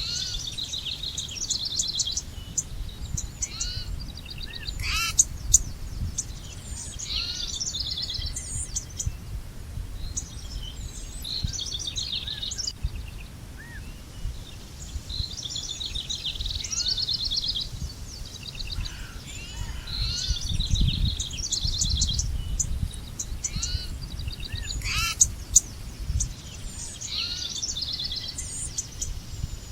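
Several songbirds singing and chirping in overlapping trills and short calls, over a steady low rumble.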